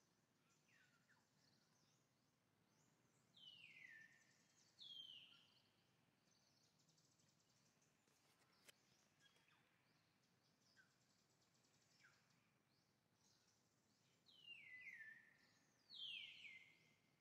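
Faint outdoor background with short high-pitched animal calls, each sliding down in pitch: two a few seconds in, and three in quick succession near the end.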